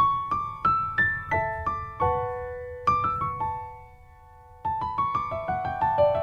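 Background music: a solo piano or electric piano playing a gentle melody of single struck notes, about three a second, pausing on a held note near the middle before the notes pick up again.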